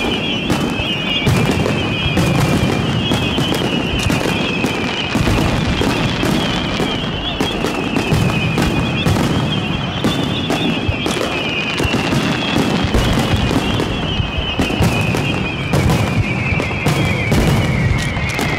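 A fireworks barrage, Japanese star mine style: many shells launched and bursting in quick succession, dense overlapping bangs and crackling over a continuous low rumble.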